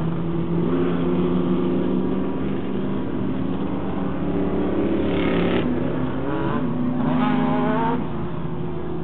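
Several short-course off-road race truck engines running together as the trucks circle the dirt track. The engines rev, rising and falling in pitch, around the middle and again near the end.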